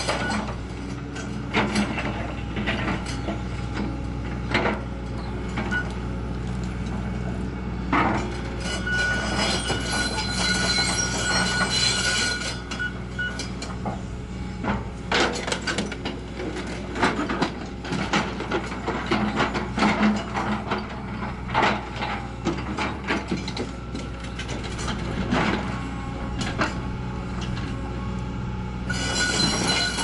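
Hitachi Zaxis hydraulic excavator running under load while its bucket and thumb crush and tear at a scrapped bulldozer's steel body. A steady engine drone is broken by repeated metal clanks and knocks, with high creaks and screeches as the steel bends and rips.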